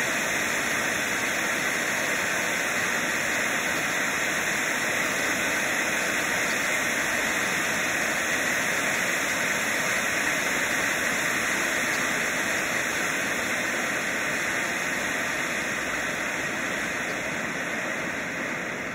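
Black Cat Titanium Fountain firework burning with a steady rushing hiss as it sprays sparks. The hiss slowly fades near the end as the fountain dies down.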